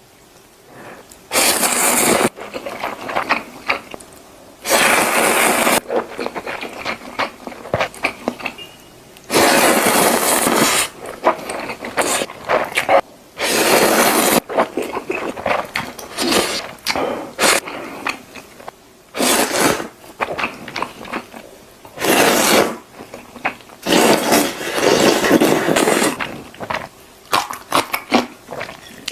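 Crunchy food being bitten and chewed, in loud crunching bursts of a second or two with short crackling clicks in between.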